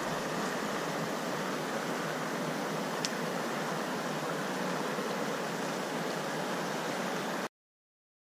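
Steady rush of water from a spillway, with one faint click about three seconds in. It cuts off abruptly to dead silence about a second before the end.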